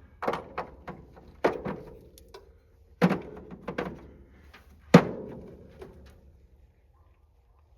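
A series of sharp metal knocks and clanks, about five over five seconds, several leaving a short ringing tone after them, from hand tools being worked against metal parts; the last knock is the loudest.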